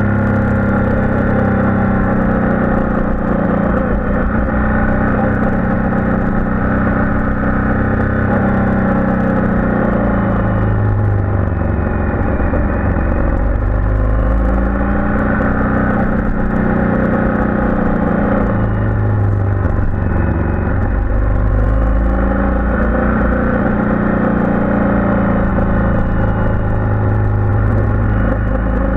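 Motorcycle engine running on a winding downhill ride, its note dropping and climbing again several times as the rider eases off for bends and accelerates out.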